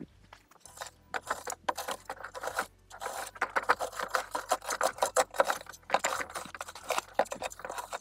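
A metal bar scraping and raking gritty soil and small stones: a fast, irregular run of scrapes and little clicks, starting about a second in.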